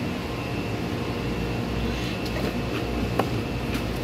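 Steady low mechanical hum, with a few light clicks in the second half as plastic engine-bay trim is handled.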